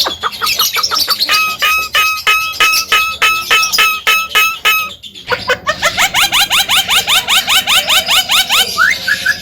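Javan myna (jalak kebo) singing, a long run of rapid repeated notes, about four a second at first; about five seconds in it breaks off briefly and resumes as a faster series of rising notes.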